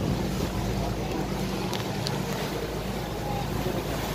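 Ship's engine running with a steady low drone under a constant rush of wind and water noise, heard from the deck of a cruise ferry under way.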